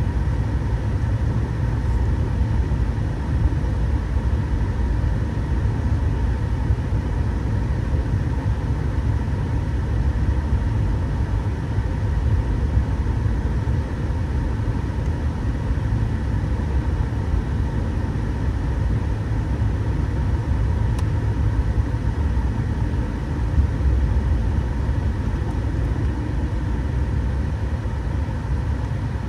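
Subaru Baja being driven: a steady low rumble of engine and road noise heard from inside the cabin.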